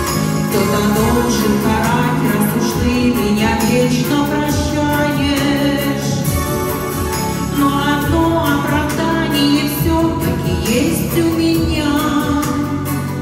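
A woman singing into a microphone over an amplified backing track with a steady beat, played through PA loudspeakers.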